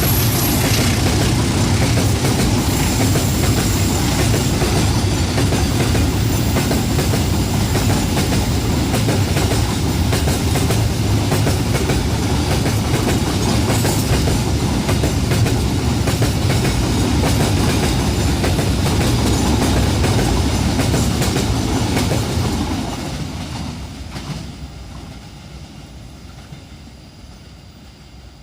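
Train cars rolling past with a steady rumble and clickety-clack of wheels on the rails. About 22 seconds in, the sound fades away steadily as the end of the train moves off.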